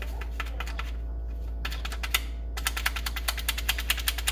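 Light tapping and clicking as sugar-free pudding mix powder is measured out, a few scattered taps at first, then a fast run of about ten clicks a second from about halfway through.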